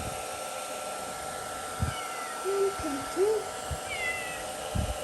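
Kittens meowing: a few short mews that rise and fall in pitch, mostly in the second half, with a few soft thumps and a steady faint hum underneath.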